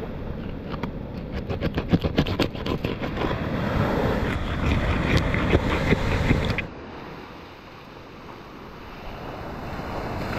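Large knife crunching through a bonefish's backbone and scales on a wooden board: a quick run of sharp cracking clicks, over a steady rush of wind and surf. About two-thirds of the way through it drops to softer wind and surf.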